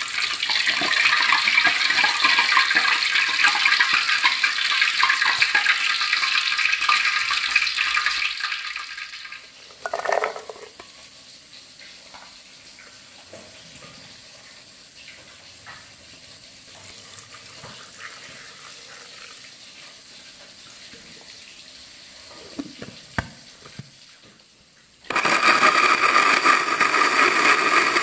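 Catfish deep-frying in hot oil in a wok, sizzling loudly for the first nine seconds or so, then a quiet stretch with a few light clicks. Near the end an electric blender starts abruptly and runs steadily, grinding shallots, chilies and garlic into a spice paste.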